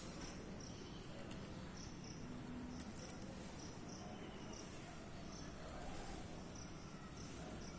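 Insects chirping in short, high-pitched pulses, repeated irregularly over a steady faint hiss.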